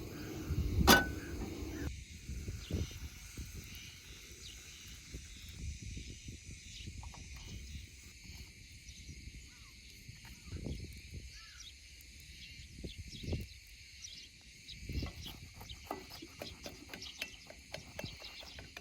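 Insects, crickets among them, chirping steadily, with scattered soft knocks and clicks close by and one sharp click about a second in.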